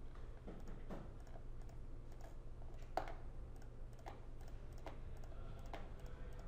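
Computer mouse clicking, about six separate clicks at irregular intervals, the loudest about three seconds in, over a low steady hum.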